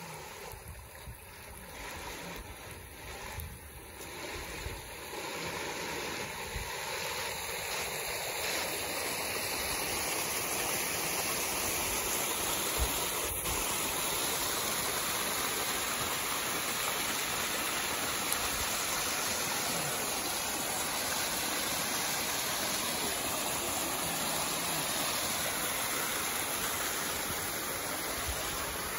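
Stream water rushing and splashing over rocks in a small cascade: a steady rush that grows louder over the first ten seconds or so, then holds steady.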